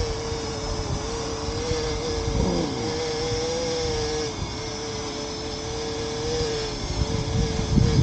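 Parrot Anafi quadcopter hovering close by, its propellers giving a steady whine that wavers slightly in pitch as it holds position against strong wind. Wind buffets the microphone with low rumbles, gustier near the end.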